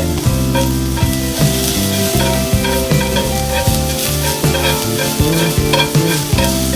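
Food sizzling and frying in a pan, with background music playing over it.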